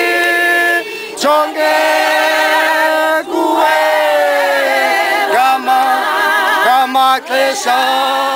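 A choir singing a cappella, several voices in harmony on long held notes with vibrato, breaking off briefly between phrases.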